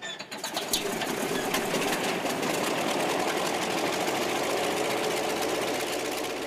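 Radial engine of an Antonov An-2 biplane running, a rapid, even mechanical pulsing that starts abruptly.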